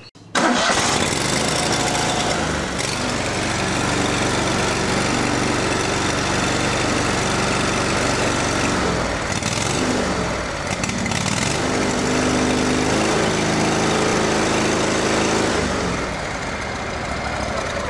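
Kohler V-twin engine on a riding mower starting at once and running. Its engine note shifts around ten seconds in, and it drops back to a lower, quieter run near the end.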